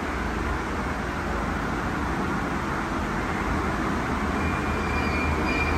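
Car wash tunnel machinery running: a steady rush of noise over a low rumble, with a high, steady whine coming in near the end.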